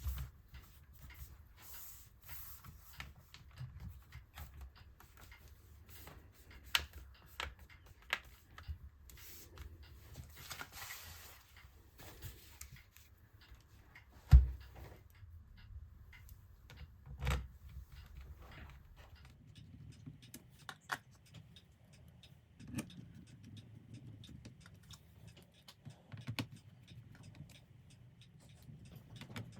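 Scattered light clicks and taps of a laptop's plastic base cover being handled and fitted back on, with a louder knock about fourteen seconds in and another about three seconds later.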